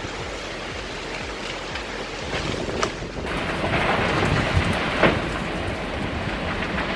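Storm noise: steady rain and wind rushing on the microphone, fuller about three seconds in, with a few sharp cracks.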